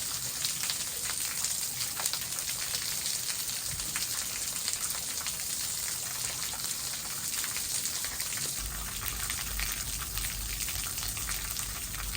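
Waterfall splashing: a steady, hissing rush of falling water with fine crackling spatter. A low rumble joins about two-thirds of the way through.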